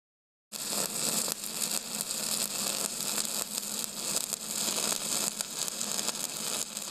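Stick welding arc running with a steady crackling hiss. It starts abruptly about half a second in and begins to fade near the end.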